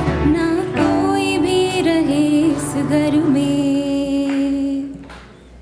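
A mixed choir singing long held notes over band accompaniment; the music ends about five seconds in, leaving only quiet hall sound.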